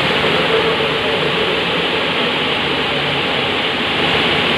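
Steady loud machine noise: an even rushing hiss with a faint steady hum underneath, from the industrial machine that this control panel runs.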